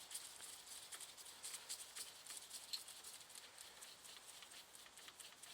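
Faint, irregular small metallic clicks and scrapes of a driver turning out a long through-bolt from a Lucas third-brush dynamo's casing.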